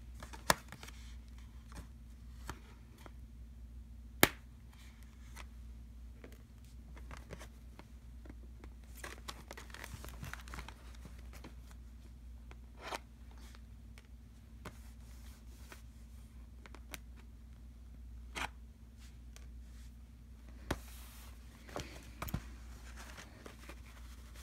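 Scissors snipping and clicking shut while hands handle a cardboard box and its plastic packaging, with scattered sharp clicks and stretches of rustling and tearing, over a steady low hum.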